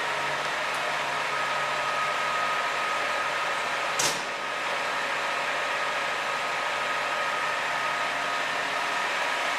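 Side-loading garbage truck standing with its diesel engine idling, a steady whirring hum with a faint whine. A single short, sharp high-pitched sound stands out about four seconds in.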